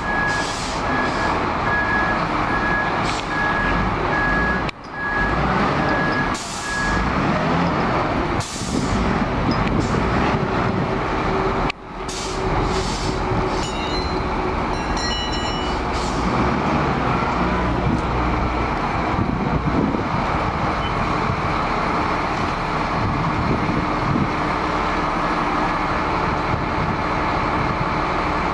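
Large wheel loader's diesel engine running steadily. A regular beeping alarm sounds over it for the first several seconds.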